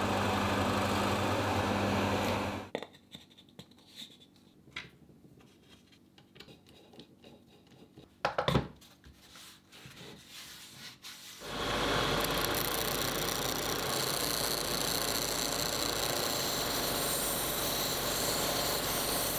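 Workshop tools at work while a jig is being made. A machine runs steadily with a low hum for the first few seconds and then stops. Then come quiet handwork with small clicks and one sharp knock about eight and a half seconds in. From about eleven seconds on, another power tool runs with a steady hiss.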